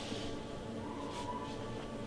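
Quiet room with a low steady hum, and a few soft scuffs of slow footsteps, roughly one every second or so.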